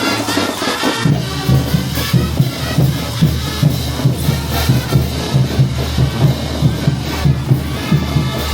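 A festival brass band playing a march-like tune over a steady, quick drum beat.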